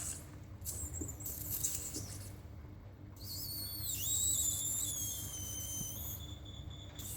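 An otter calling: a few short hissing sounds, then about three seconds in a long high-pitched call that dips in pitch and then holds steady for a couple of seconds.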